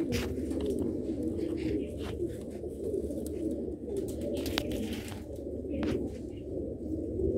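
Several caged domestic pigeons, golden and Sialkoti breeder birds, cooing continuously in low overlapping calls. A few light clicks come through the calls.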